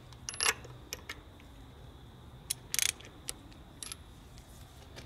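Scattered metal clicks and clinks of hand tools working the spark plugs on a 1995 Evinrude 88 Special outboard, with one louder brief rasp a little before the middle. The old plugs are being swapped for new ones.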